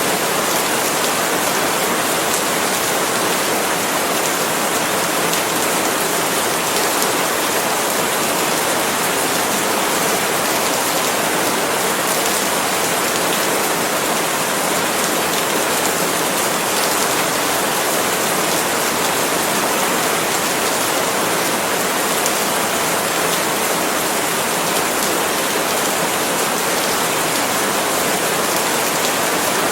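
Steady, constant rain falling on palm leaves, an even hiss of many drops with no single events standing out.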